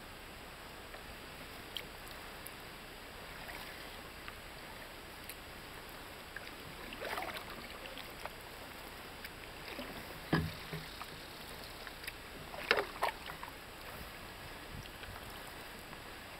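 Wooden canoe paddle working in calm water: quiet strokes and drips over a faint hush, with a few sharper paddle sounds, loudest about ten and thirteen seconds in.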